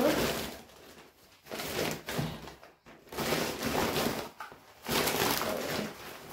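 Packaging rustling and being handled as grocery items are picked up and shown, in four bursts of about a second each.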